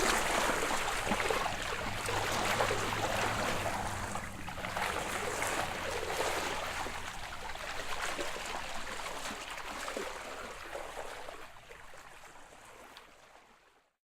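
Water sloshing and trickling at the surface of open water, as heard after surfacing from underwater. It fades out over the last few seconds.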